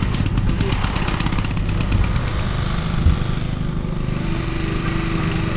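An engine running steadily, with a single thump about three seconds in.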